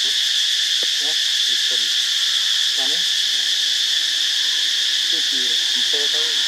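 Steady, shrill chorus of insects droning without a break.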